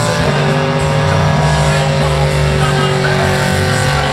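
Supercharged engine of a burnout car held at high, steady revs while its rear tyres spin in smoke, with background music over it.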